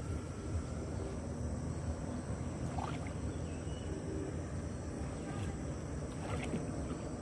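Steady low rumble and water noise of a boat moving along a river.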